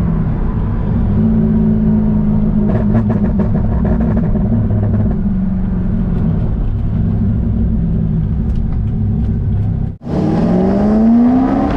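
1999 C5 Corvette's LS1 V8 running on the road, holding a steady engine speed. After a brief drop-out about ten seconds in, its note rises as the car accelerates.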